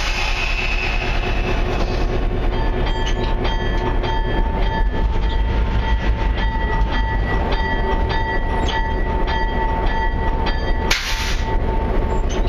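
EMD GP10 locomotive's 567 diesel engine running, on its first test run after two cylinder liners were replaced. A few seconds in, a ringing tone starts, struck about twice a second, typical of the locomotive bell, and stops with a short burst of air hiss near the end.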